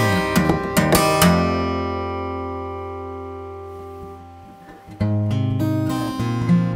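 Steel-string acoustic guitar played fingerstyle, with sharp percussive hits over the first second. A chord is then left ringing and slowly fades for about three seconds, and the picking starts again about five seconds in.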